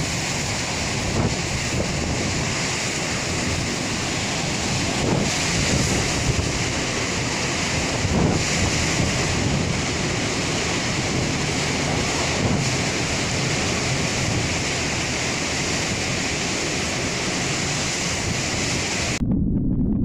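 Hurricane wind and heavy rain: a steady, loud rush of noise with wind buffeting the microphone. About nineteen seconds in it cuts to a deeper, muffled rumble of wind.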